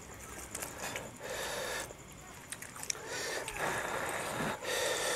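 Bare hands kneading rice and pork curry in a wooden bowl: wet squishing in bursts of about a second each.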